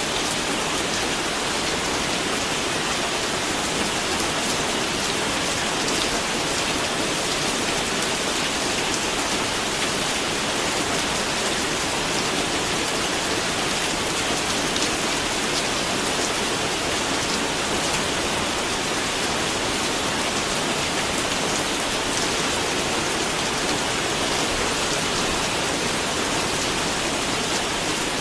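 Steady rain falling and pattering on a surface, an even hiss of many fine drops with no let-up.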